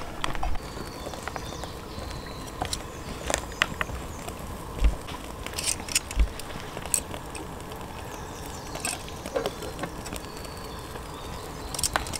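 A campfire crackling, with scattered sharp pops and ticks at irregular times over a faint steady outdoor background.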